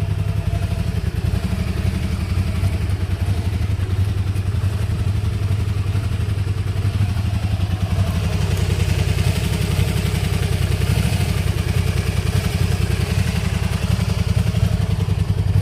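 Honda VT250F's 250 cc V-twin engine running steadily at low speed with an even, low throb, just after an engine oil change.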